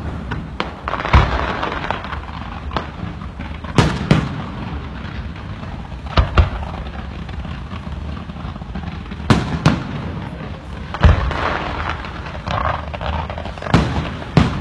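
Fireworks display: aerial shells going off in about ten sharp bangs at irregular intervals, with a steady crackle and rumble of bursting shells between them.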